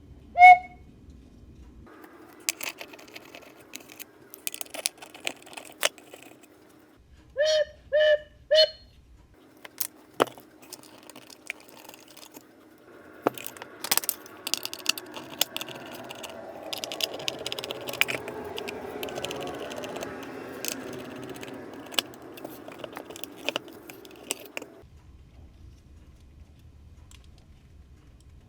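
Clicks and metallic rattles of hands working on an antique Black Forest cuckoo clock. A short pitched call comes just after the start and three short pitched notes come about eight seconds in. The rattling grows denser and steadier in the middle, then dies away near the end.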